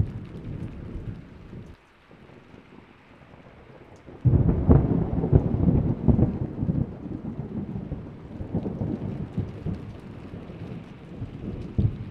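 Thunder. A rumble breaks off about two seconds in; then, about four seconds in, a loud thunderclap starts suddenly, crackling and rolling for a few seconds before easing into lower, uneven rumbles, with one more swell near the end.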